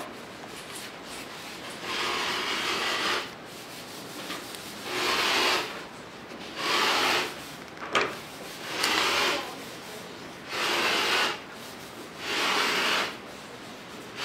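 A carved boxwood spoon being rubbed with a cloth to polish in olive oil, the final finishing stage: about six slow, even rubbing strokes of roughly a second each, every one and a half to two seconds, with one sharp click about eight seconds in.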